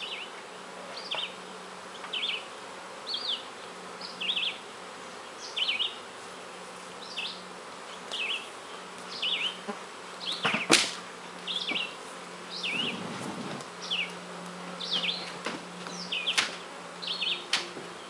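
Honeybees buzzing around open hives, a steady low hum. Over it come short high chirps about once a second, and a few sharp knocks.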